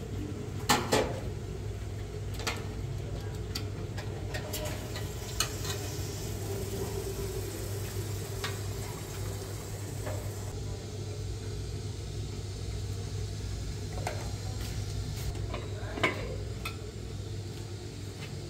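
Pots cooking on lit gas-stove burners, with a steady low hiss and hum, and occasional clinks of metal pots, lids and a kettle being handled. The sharpest clinks come about a second in and right at the end.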